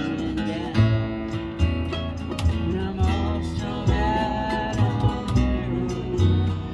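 Small acoustic band playing: an upright bass plucks steady low notes under strummed acoustic guitars.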